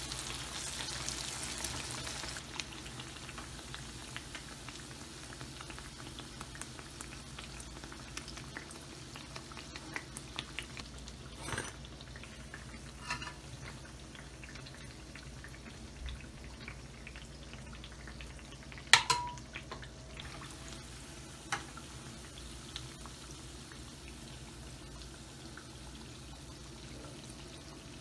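Urad dal fritters deep-frying in hot oil: a steady sizzle, loud for the first two seconds and fainter after. A few sharp clinks of utensils break in, the loudest about nineteen seconds in.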